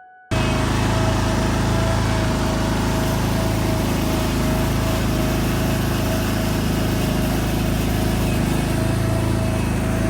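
Commercial leaf blower running steadily at full throttle, a steady whine over the engine's drone.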